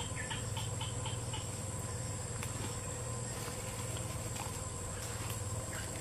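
Steady high-pitched insect chorus shrilling continuously in the vegetation, with a few faint ticks in the first second as hands work the bait onto the twig.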